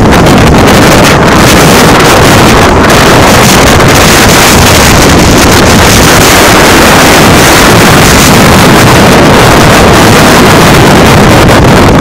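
Strong wind buffeting a phone's microphone: a loud, steady rush that pins the level near full scale, over rough water.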